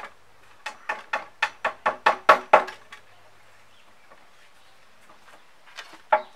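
Hammer striking, about nine blows that come quicker and louder over two seconds, each with a short ring. After a pause of about three seconds, the blows start again near the end.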